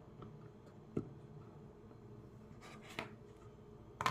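Glass Pyrex food containers being handled on a counter: a few faint clicks and some rubbing, as when lids are fitted on to seal them.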